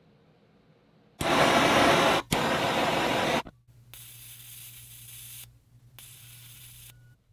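Heat gun blowing hot air over heat-shrink tubing on soldered wire joints: two loud hissing blasts, then two quieter stretches of hiss with a low motor hum under them.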